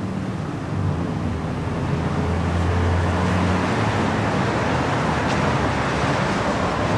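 Road traffic: cars driving past on a street, a steady rush of engines and tyres that grows a little louder about a second in.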